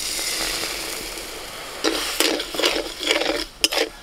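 Granulated sugar poured from a bowl into a metal kadai with a little water, a steady hiss for about two seconds, then a flat metal spatula scraping and stirring the sugar around the pan in quick strokes: the start of making a sugar caramel.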